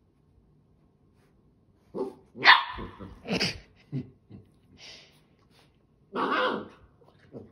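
Dogs barking at play: a run of short barks starting about two seconds in, with a longer bark just after the six-second mark.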